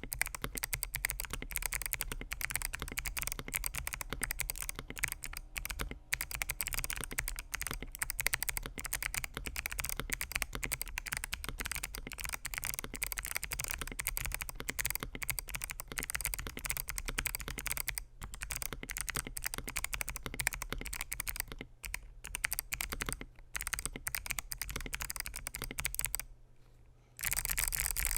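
Continuous typing on a mechanical keyboard with lubed Kailh BOX Jellyfish clicky switches, polycarbonate plate and polycarbonate keycaps: a dense, irregular run of sharp key clicks. Near the end the typing stops for about a second, then a steadier noise begins.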